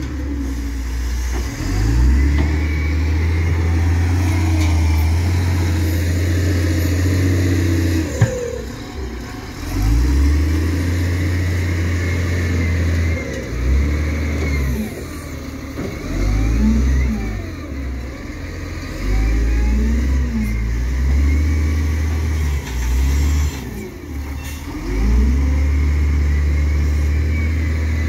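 Engine of a heavy earth-moving machine working, revving up and dropping back over and over, with its low drone cutting in and out every few seconds.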